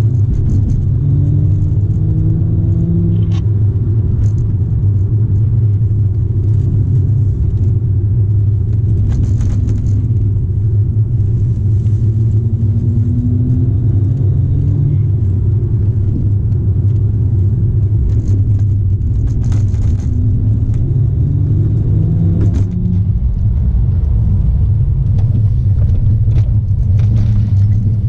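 BMW straight-six car heard from inside the cabin while driving: a steady low drone of engine and road noise, with the engine note rising in pitch several times as the car accelerates, and a few faint short knocks.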